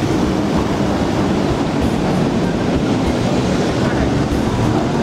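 A 1911 Hurst Nelson electric tram running along its street rails towards the listener, making a steady low rumble from its wheels on the track.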